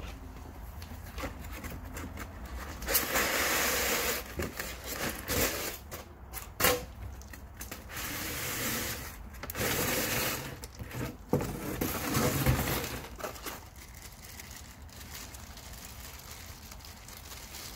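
A cardboard shipping box being unpacked by hand: the flap folded back and a foam-packed window slid out, with several stretches of scraping and rubbing of cardboard and foam and a few sharp knocks between them. Quieter handling near the end.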